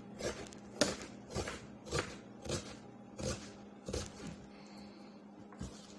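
Kitchen knife slicing an onion on a wooden cutting board: about seven even knocks of the blade against the board, a little over half a second apart, stopping about four seconds in.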